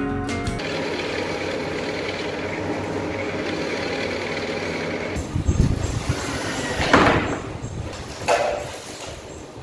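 Drill press running steadily, its large bit boring a hinge-cup hole in a wood panel. About five seconds in it gives way to short bursts of a cordless drill and a few sharp knocks of panels being handled.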